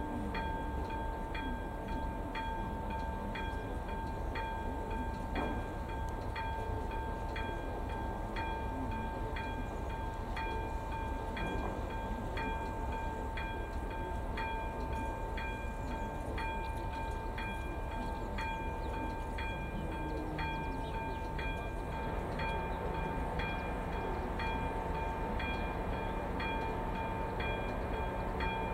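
Czech level-crossing electronic warning bell (AŽD ZV02) ringing in an even rhythm of strikes about once a second over a steady high tone. The crossing is activated, warning that a train is approaching.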